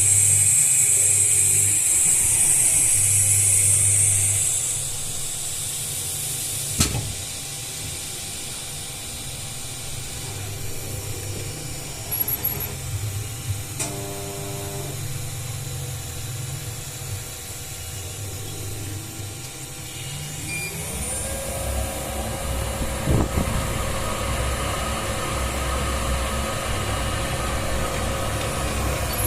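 Dental milling machine running: a loud high hiss for the first few seconds, then a quieter mechanical noise. About 21 s in, a motor spins up with a rising whine that settles into a steady hum.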